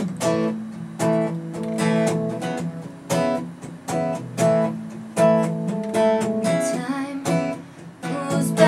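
Acoustic guitar strummed in a steady rhythm, chords ringing between the strokes: the instrumental intro of a live country song before the vocal comes in.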